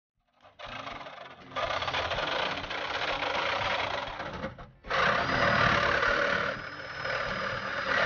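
A power saw cutting through the sheet-metal roof pillar of a Volkswagen Jetta. It is a harsh, rasping cut with a fast pulsing, and it breaks off briefly a little past halfway before going on.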